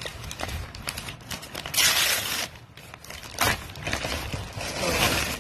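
Parcel packaging crinkling and tearing as it is unwrapped by hand, in several rustling bursts, the loudest about two seconds in.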